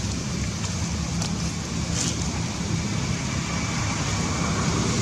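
Steady low background rumble with an even hiss, unchanging throughout.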